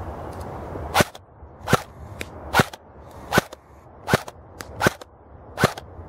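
An airsoft rifle, the M27 IAR replica, firing single shots: seven sharp cracks, one about every three-quarters of a second.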